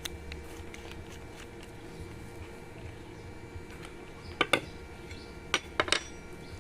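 Sharp metallic clinks and taps of small tools and pedal parts being handled on a workbench during a bicycle pedal overhaul: a pair of clinks about two-thirds of the way in, then three more in quick succession near the end, over a steady low hum.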